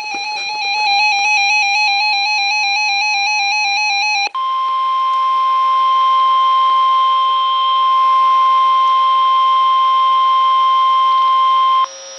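Radioshack 12-382 weather radio sounding an alert: a fast warbling electronic alarm for about four seconds, then the steady 1050 Hz NOAA Weather Radio warning tone, which cuts off sharply just before the end and leaves a faint low hum. The tone signals that a warning broadcast, here a severe thunderstorm warning, is about to follow.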